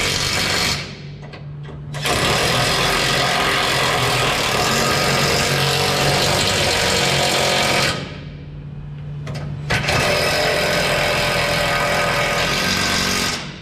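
Wire-feed (MIG) welder arcing with a steady crackle in three runs, stopping twice for about a second as the trigger is let off, over a steady low hum.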